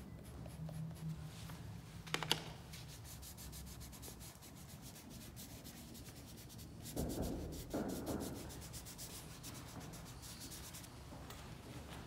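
Dry pastel stick scratching and rubbing across drawing paper in quick, repeated strokes, with two louder rubbing passes about seven and eight seconds in.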